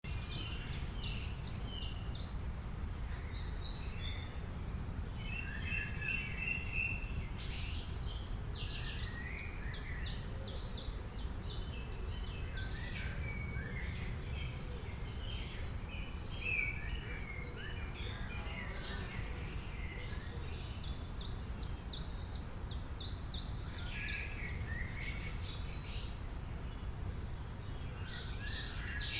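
Several birds chirping and singing, with many short overlapping calls and trills throughout, over a steady low background rumble.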